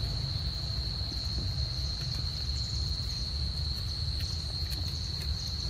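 Steady high-pitched insect drone holding one unbroken pitch, over a low rumble.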